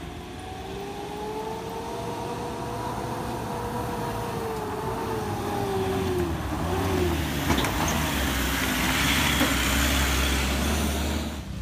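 Engine of a heavily loaded cab-over pickup truck holding a steady note as it climbs a rough gravel slope. It grows louder as the truck comes close and passes, with more rumble and hiss near the end.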